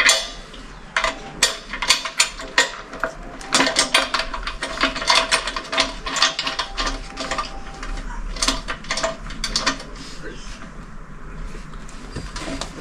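Rapid, irregular metallic clicking and rattling, as of a small mechanism or metal parts being worked by hand. It thins out over the last couple of seconds.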